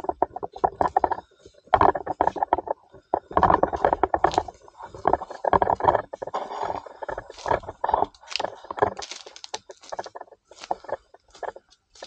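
Footsteps crunching on dry leaf litter and twigs on a bush track, with rustling of disturbed undergrowth, in uneven bursts of close crackles.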